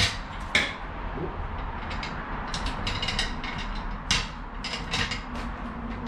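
Jack being worked into position under a car: a scatter of irregular metallic clicks and knocks over a low steady hum.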